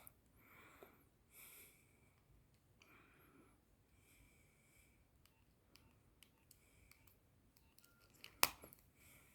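Quiet room with faint rustles and soft scattered clicks, then one sharper click near the end: handling and keypad presses on a Nokia 6101 mobile phone.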